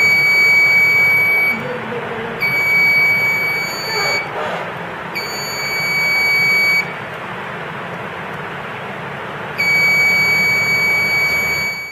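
Small electronic buzzer of a 555-timer burglar alarm circuit sounding a steady high-pitched tone in four long beeps of about one and a half to two seconds each, with gaps between, the last starting near the end; the alarm is triggered by the light-dependent resistor being shaded. A steady hiss underlies it.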